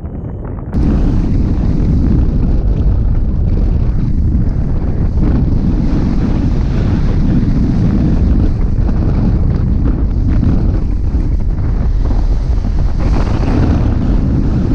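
Airflow buffeting a glider-mounted action camera's microphone in hang glider flight: a steady, heavy wind rumble that jumps louder about a second in.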